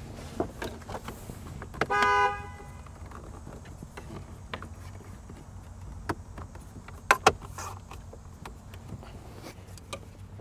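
Plastic dash trim clips on a 2021 Ford F-150 being pressed home, with small knocks and two sharp snaps close together about seven seconds in. About two seconds in there is a brief honk-like tone, and a steady low hum runs underneath.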